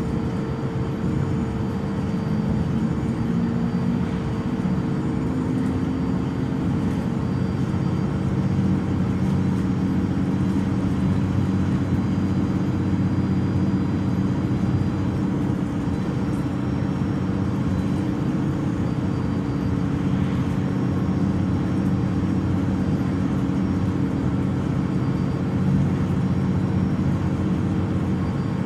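MAN Lion's City Euro 6 city bus idling while stationary, its six-cylinder D0836 diesel running steadily with a constant whine over the engine note.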